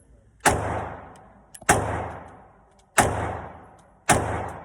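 Compact pistol firing four shots at a steady pace, about one every second and a quarter, each shot followed by a long echoing decay.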